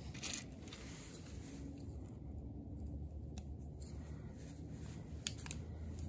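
Wire being snipped with a cutting tool: a sharp snip just after the start and two quick snips close together near the end.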